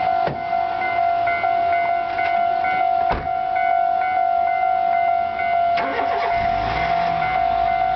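Japanese railway level crossing's electronic warning bell ringing over and over at a steady rhythm. A low train rumble builds up near the end.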